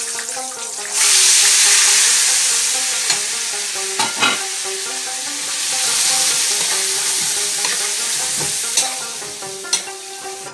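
Raw lamb pieces dropped into hot oil in a wok set off a loud sizzle about a second in, which eases toward the end. A few sharp clicks of a metal spoon against the pan come as the meat is turned.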